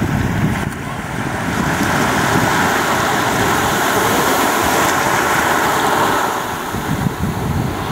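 Small waves washing in over a shallow sandy beach, with wind buffeting the microphone; the wash swells louder through the middle and eases near the end.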